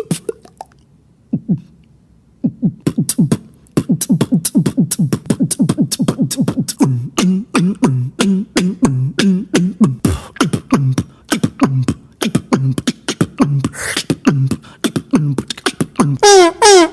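Beatboxing: a single performer's mouth-made drum beat, fast percussive clicks and snares over low hummed bass notes that alternate between two pitches in a steady rhythm. Near the end a loud held vocal tone slides down in pitch.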